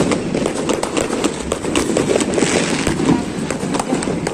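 Fireworks and firecrackers going off all around: irregular sharp bangs and pops, many per second, over a continuous crackle.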